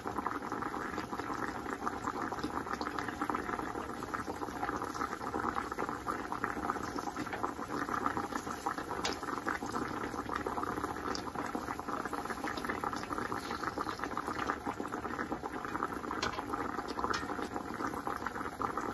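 Thin, flour-dredged pieces of deer backstrap sizzling steadily in hot grease in a cast-iron skillet.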